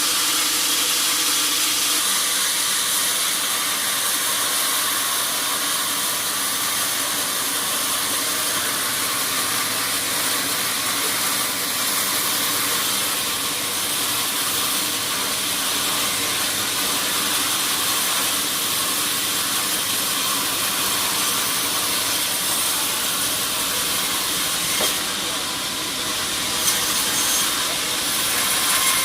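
Sawmill machinery running steadily, a constant hissing noise, with two small knocks near the end.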